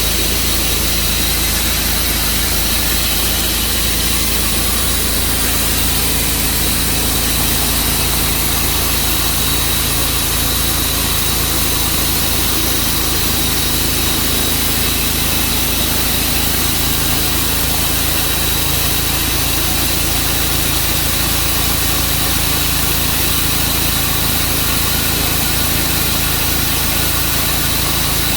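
Tru-Cut sawmill running steadily, sawing through a bur oak log.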